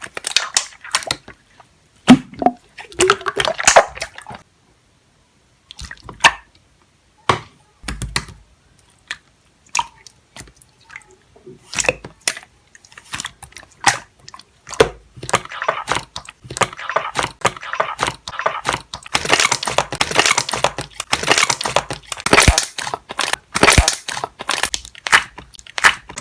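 Close-up crunching and squishing, like chewing, in short irregular bursts with pauses, growing denser and louder from about halfway through.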